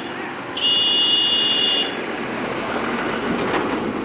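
A high steady electronic beep, held for about a second, over the even noise of truck engines and traffic.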